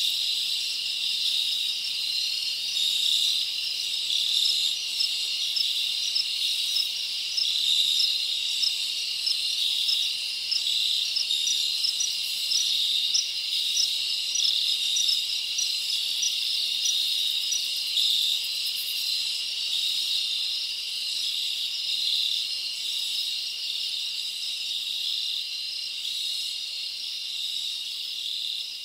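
A steady, high-pitched chorus of insects, many calls running together without a break, growing slightly fainter near the end.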